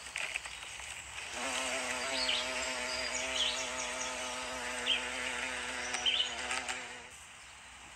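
Bumblebee buzzing in flight: a steady low wingbeat hum that starts about a second and a half in and stops shortly after seven seconds.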